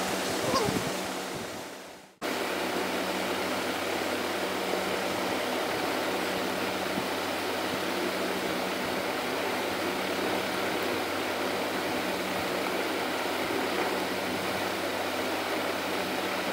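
Steady hiss of background noise with a faint low hum, like a fan or air conditioner running. About two seconds in it fades away and then cuts back in abruptly, and it stays even after that.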